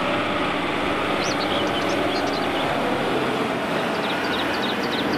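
Heavy multi-axle dump truck driving on a sandy dirt track, its diesel engine running steadily. A few short high chirps sound over it.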